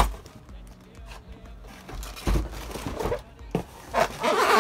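Cardboard box and plastic packaging being handled: a couple of dull knocks, then a burst of crinkling plastic near the end.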